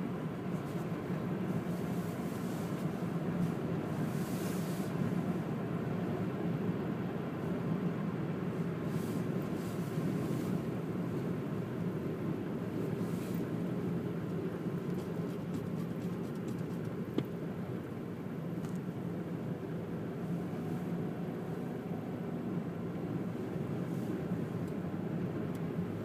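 Steady road and engine noise heard inside a moving car's cabin, with one brief tick about two-thirds of the way through.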